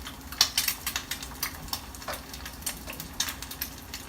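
Hot water bubbling and popping in a container of microwave-cooked rice, with irregular small pops and clicks; the water has not yet all been absorbed by the rice.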